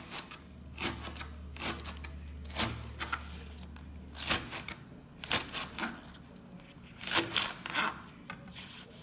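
Chef's knife slicing through a giant green onion stalk on a plastic cutting board: about ten irregular cuts, each a short crisp stroke as the blade goes through and meets the board.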